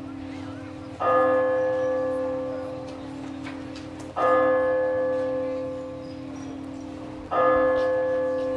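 A bell tolling slowly: three strikes about three seconds apart, each ringing on and fading away before the next.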